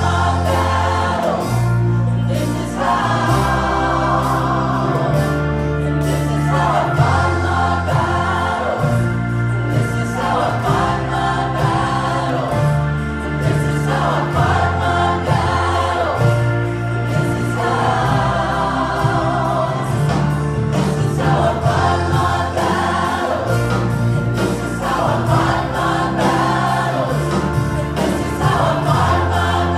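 Live gospel worship music: a group of women singing together over band accompaniment, with sustained low bass notes shifting every couple of seconds.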